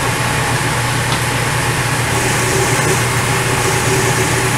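Milling machine running steadily with a drill bit in its spindle, a constant motor hum.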